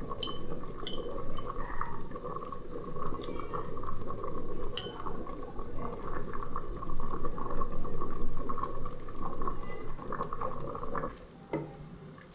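Food cooking on the stove, a steady bubbling and crackling with a few sharp metallic clinks of a utensil against a pot; the cooking sound drops away near the end.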